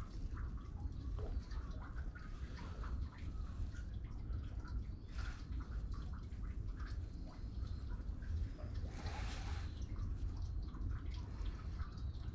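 Baitcasting reel being wound in, with faint clicks and small drips and splashes of water as an Imoripper, a soft newt-shaped topwater lure, is worked back across the surface, over a steady low rumble.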